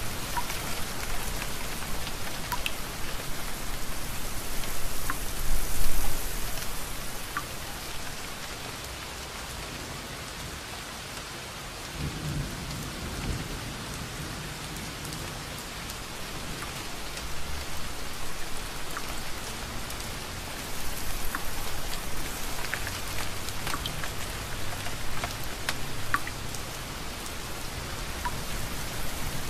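Steady rain falling, with scattered individual drips ticking through it. About twelve seconds in, a low roll of distant thunder rises and fades over several seconds.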